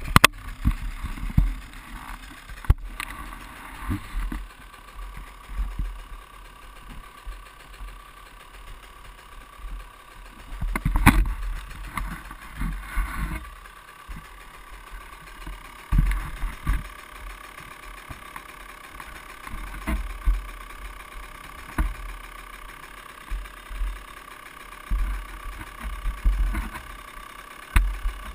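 Handling noise on a chest-mounted GoPro: irregular low thumps and rubbing as the camera is fitted and the wearer moves about, with a few sharp clicks.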